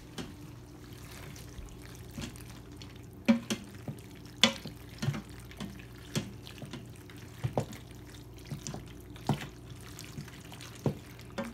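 Wooden spoon stirring macaroni and melting cheese in a stainless-steel Instant Pot inner pot: wet stirring with irregular knocks of the spoon against the pot, over a steady low hum.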